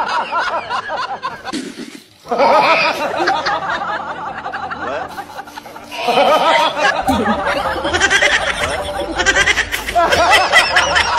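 People laughing and giggling, in stretches that break off and change abruptly about two, six and ten seconds in.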